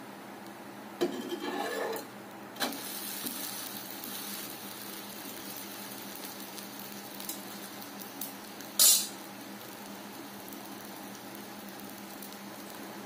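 Dosa batter sizzling on a hot non-stick tawa, a steady frying hiss. A few utensil scrapes and clinks come in the first couple of seconds, and a brief sharp sound comes about nine seconds in.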